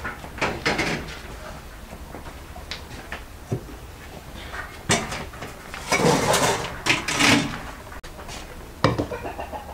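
Metal cookware being handled: an aluminium pot and a frying pan knocked and clattered against the stove and each other, in a string of sharp knocks with a longer clatter about six seconds in and another sharp knock near the end.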